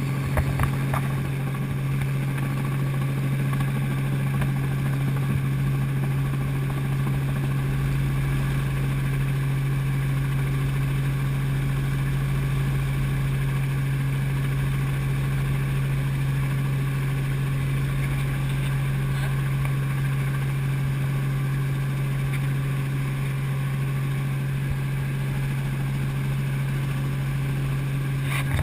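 Helicopter in flight, a steady loud drone with a strong constant low hum; a deeper rumble joins about eight seconds in.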